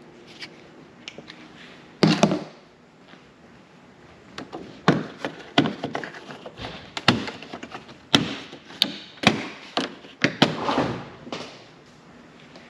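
Plastic push-in clips popping loose one after another as a long plastic trim strip is pried up off the front of a 6th-gen Camaro: a sharp snap about two seconds in, then a rapid run of clicks and pops.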